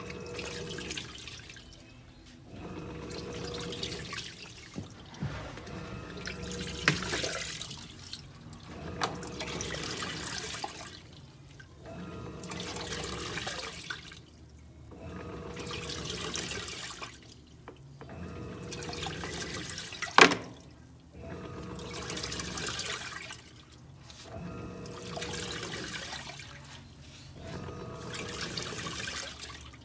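Electrolux LTE06 washing machine in its wash cycle: water sloshing in bursts of two to three seconds with short pauses between, about every three seconds, as the wash action turns one way and then the other under a faint motor hum. A single sharp knock about twenty seconds in.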